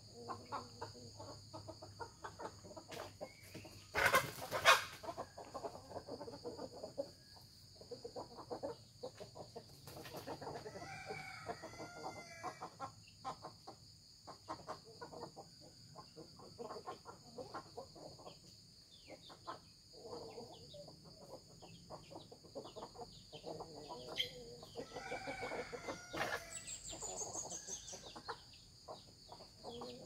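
Free-range chickens clucking as they forage, with a rooster crowing twice, once about ten seconds in and again about twenty-five seconds in. A loud, sharp noise comes about four seconds in.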